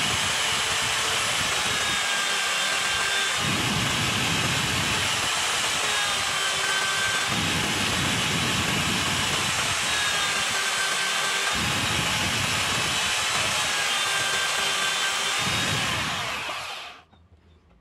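Electric drill in a bench drill stand running steadily with a high whine, its bit boring into a softwood block again and again, each plunge adding a lower grinding about every four seconds. The motor stops about a second before the end.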